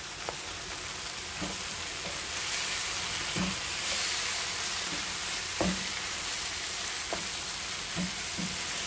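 Onions, peppers and tomato paste sizzling steadily in a non-stick frying pan, the sizzle swelling a little a few seconds in. A wooden spatula stirs the mixture, scraping and knocking against the pan several times.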